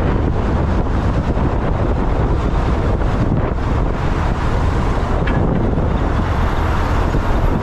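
Steady wind buffeting the microphone of a moving motorcycle, with engine and road noise underneath.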